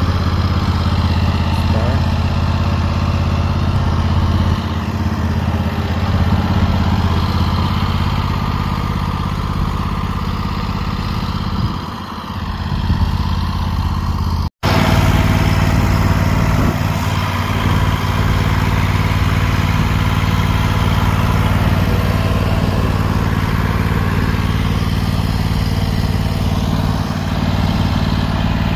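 Engine of a 2017 Hustler 52-inch zero-turn mower running steadily, with a brief gap in the sound about halfway through where the recording cuts.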